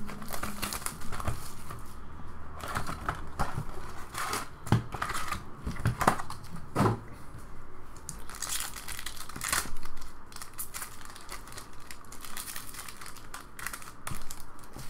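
Crinkling and tearing of plastic shrink wrap and foil trading-card packs as a hobby box is unwrapped and its packs handled, with irregular crackling and a few louder snaps.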